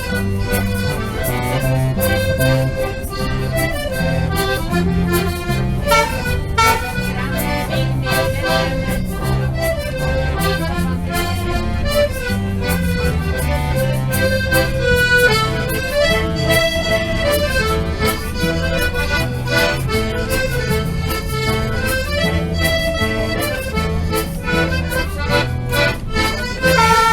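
Instrumental music: a melody line over a steady, rhythmic alternating bass.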